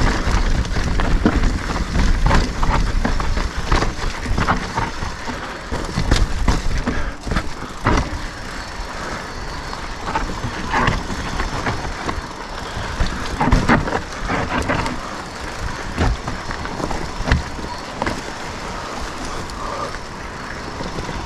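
Mountain bike riding over rocky trail: tyres rolling on dirt and stone and the bike rattling, with many sharp irregular knocks over a steady low rumble.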